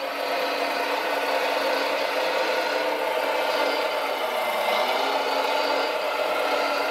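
Radio-controlled Volvo L250G wheel loader model driving, its motors and drivetrain making a steady whir, with a low tone that rises and falls.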